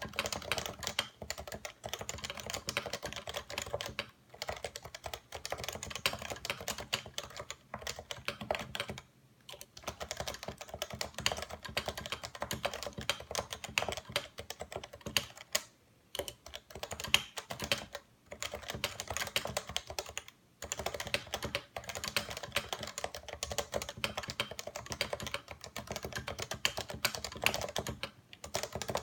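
Continuous fast typing on a Realforce 87U Topre keyboard with 55 g electrostatic capacitive switches, a rapid run of key presses with a few brief pauses.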